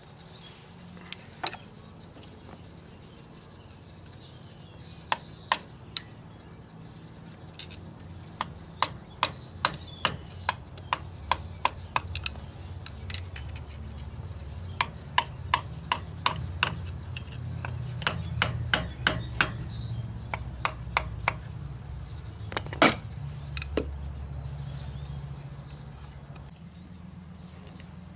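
Sharp metal taps and clicks from a flat-blade screwdriver worked against the keeper-plate tab between the lock nuts of a semi-truck axle hub, folding the tab down. The taps come in runs of about two a second with pauses, and the loudest strike falls near the end, over a low steady rumble.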